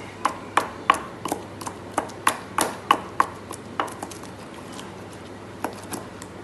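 Wooden pestle pounding mint chutney in a stone mortar, giving sharp knocks about three a second. After about four seconds the knocks become fewer and softer, as the pestle grinds more than it strikes.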